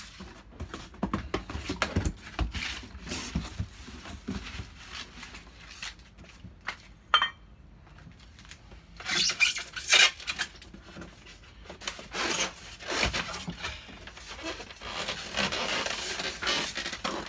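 Cardboard box being handled and set up: irregular scraping, rubbing and knocks of cardboard, with louder rustling bursts about nine to ten seconds in and again near the end.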